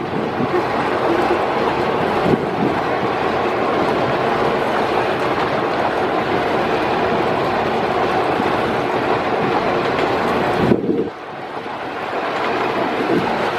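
Small wooden fishing boat's engine running steadily with water rushing along the hull and a rhythmic clatter. The noise drops suddenly about eleven seconds in, then builds back up.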